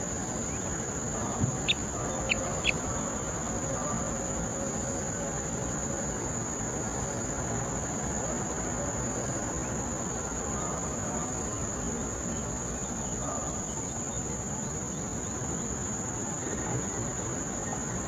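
Steady, high-pitched chorus of insects over a broad background hiss of woodland ambience; about two seconds in, a few short, sharp clicks.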